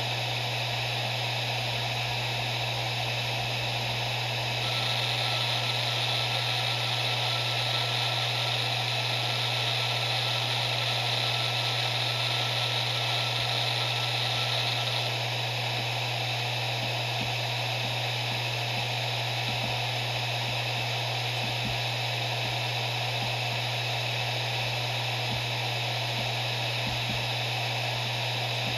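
Maxtor MaXLine Plus II 7Y250M0 7200 RPM hard drive spinning, a steady whir over a low hum. A thin, higher whine and hiss grow stronger about five seconds in and ease off about halfway through.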